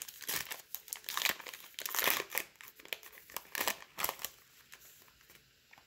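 A sealed trading-card pack wrapper being peeled and torn open by hand, crinkling in a run of short crackles that thin out after about four seconds.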